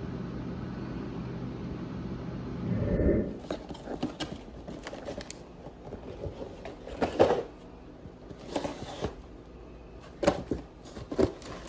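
Steady low drone of a car engine heard from inside the car, then a string of irregular clicks and knocks.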